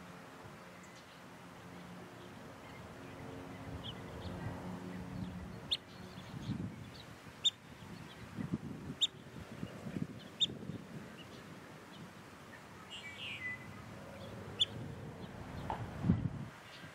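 Short, sharp, high bird call notes, one every second or two, over low rumbling and a faint steady hum that fades after the first few seconds.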